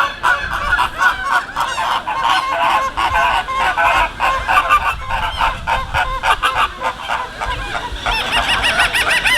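A flock of flamingos honking, a dense chorus of many short, overlapping goose-like calls, growing a little higher and louder near the end.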